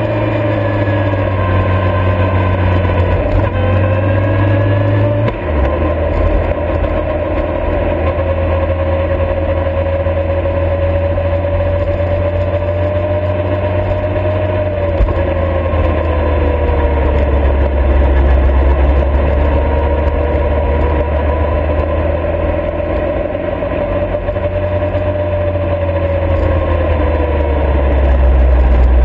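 Motorcycle engine running under way, its note rising and falling with road speed, along with wind and road noise. The engine note changes abruptly about five seconds in and grows louder near the end.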